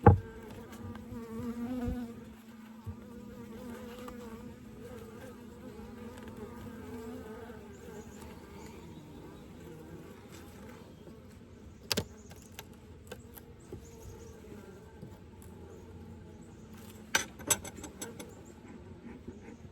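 Honeybees buzzing around an opened horizontal hive, a steady wavering hum. A few sharp knocks cut through it: a loud one at the start, one midway, and two close together near the end.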